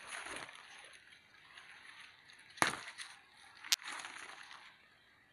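Rustling of dry leaves and twigs in forest undergrowth, with two sharp snaps about two and a half and three and a half seconds in, the first the louder.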